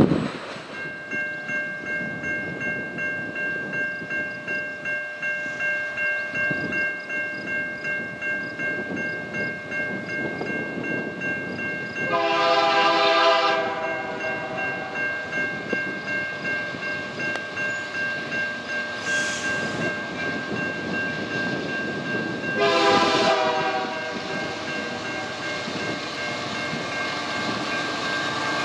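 Approaching diesel freight train, with the lead locomotive's multi-chime air horn sounding two separate blasts of about a second and a half each, the first about twelve seconds in and the second about twenty-three seconds in. A low train rumble runs underneath, together with a steady high ringing that pulses about twice a second.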